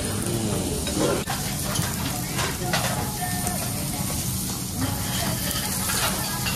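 Lamb and onions sizzling on a dome-shaped cast-iron jingisukan grill, a steady frying hiss, with a few light clicks of utensils against the pan as meat is laid on.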